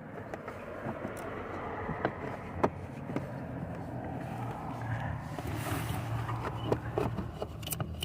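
Airbag control module and its wiring being handled and worked into place under cables: scattered light clicks and knocks over a steady low background noise, with a short hiss a little past the middle.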